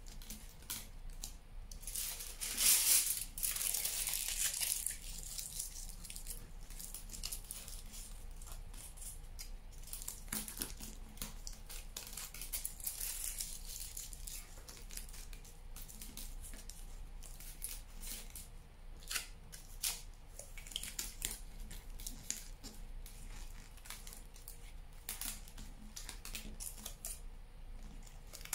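Aluminium foil being crumpled and pressed by hand onto a wire figure armature: an irregular crinkling rustle with scattered crackles, loudest a few seconds in.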